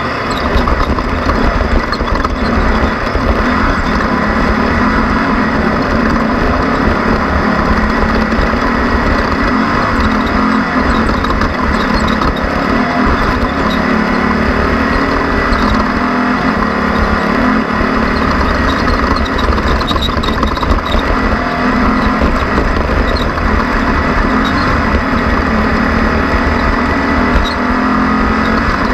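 Off-road race vehicle's engine running hard at speed, loud and continuous. Its pitch wavers a little, over a thick wash of driving noise.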